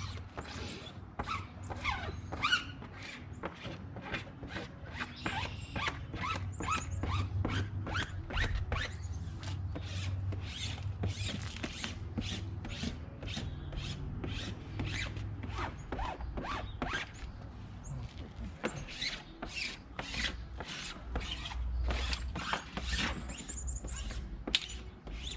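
Vinyl decal being rubbed and pressed down onto the RV's back wall: a rapid series of short squeaky rubbing strokes, over a low steady hum.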